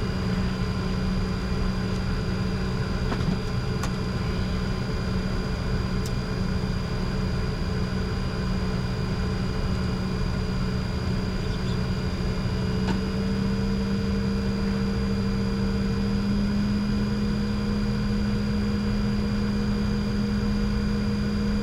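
Steady cockpit hum of a Bombardier Challenger 604 business jet taxiing at low power: an even rush of engine and airflow noise with steady hums in it. About 13 seconds in a higher tone joins and the low hum grows slightly louder.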